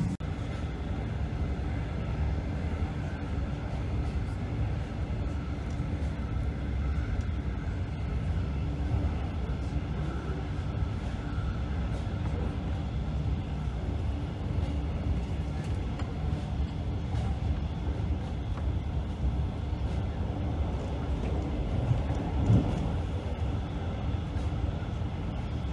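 Steady low rumble of a passenger train running at speed, heard from inside the carriage: wheels on the rails and the car's running noise.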